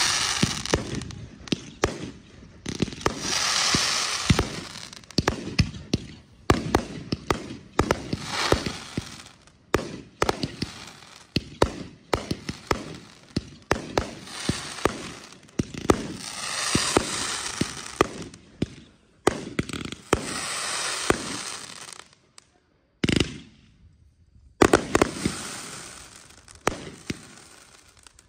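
Multi-shot aerial fireworks going off: a fast, irregular run of sharp bangs from launches and bursts, several followed by swelling crackling and hiss. There is a brief lull near the end before a final few bangs.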